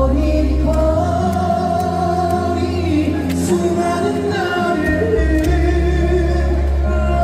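A song performed live over a PA: a singer holding long, drawn-out notes over backing music with a steady bass line.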